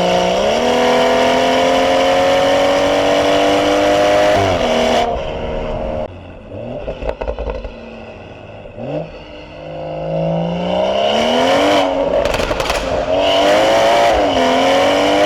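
BMW 440i's turbocharged B58 inline-six with a catless downpipe, heard from inside the car, pulling under acceleration with its pitch climbing, then easing off about five seconds in. It accelerates again a few seconds later, and the pitch drops at gear changes near the end.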